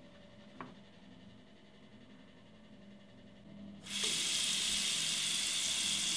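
Bathroom sink tap turned on, water running steadily into a ceramic washbasin. It comes in suddenly about four seconds in; before that there is only faint room tone with a single small click.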